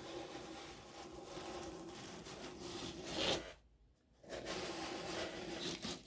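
Rubbing and scraping of a 3D-printed plastic model building being turned around on a tabletop, in two spells with a short pause about three and a half seconds in.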